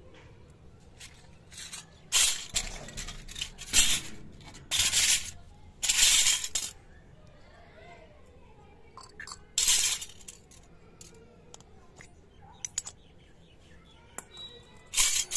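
Miniature stainless-steel toy bowls and cups clinking against each other and scraping on a concrete floor as they are set down, in a series of short bursts, most of them in the first seven seconds, one more about ten seconds in and another at the very end.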